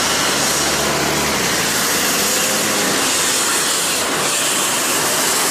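Street traffic noise, with a double-decker bus's engine running as it drives past: a steady hiss with a low engine hum during the first second or so.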